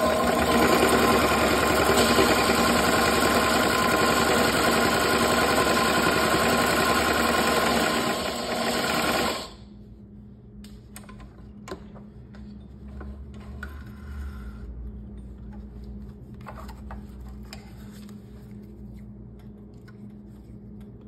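Consew CP206RL portable walking-foot industrial sewing machine stitching through a thick stack of denim and vinyl layers. It runs steadily for about nine seconds, then stops suddenly, leaving a faint low hum and a few light clicks.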